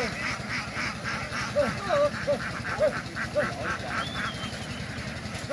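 Ducks quacking: short calls repeating about every half second over a dense, rapid chatter of higher calls from several birds, with one brief high squeak near the middle.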